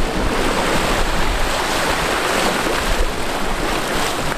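Surf washing against jetty rocks, a steady rush of waves.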